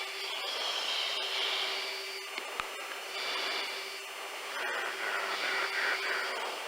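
Steady jet noise heard from inside a chase plane's cockpit: engine and airflow hiss over a constant hum, swelling and easing every couple of seconds, with one brief click about halfway through.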